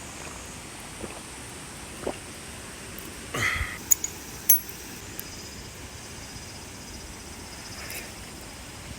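Two sharp metallic clinks a little over half a second apart, just after a brief scraping rush, over a steady outdoor hiss.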